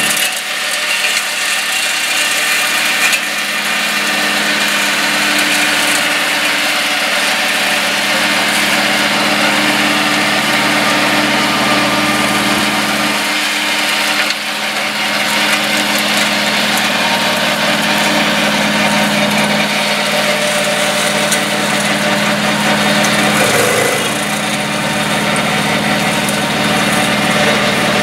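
Two-cylinder 954 cc diesel engine of a 22 hp mini crawler tractor running steadily under load, driving a Zanon TML 115 flail mower through tall grass and brush.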